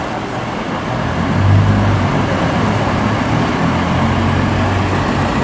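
Street traffic: motor vehicles passing, with a low engine hum that swells about a second and a half in and again near the end.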